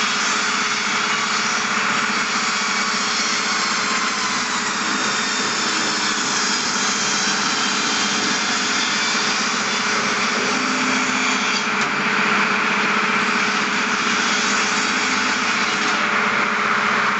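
Double-disc log cross-cutting saw machine running: steady, loud machine noise with a constant hum under a broad hiss, its tone shifting slightly twice partway through.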